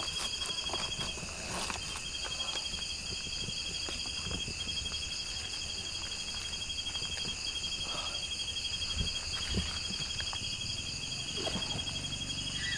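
Night insects, crickets among them, trilling steadily in several high tones, one a fast pulsed trill that stops and starts again several times. Faint rustles and light knocks of papery wasp-nest comb being handled and dropped into a plastic bucket.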